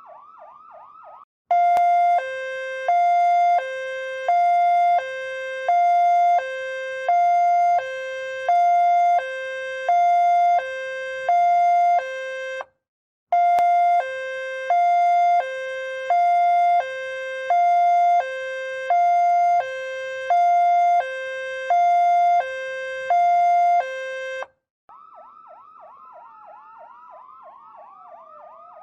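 Ambulance siren in two-tone hi-lo mode, switching between a higher and a lower pitch about once a second, with a short break about halfway. At the very start and in the last few seconds a quieter siren sweeps rapidly up and down in overlapping yelps.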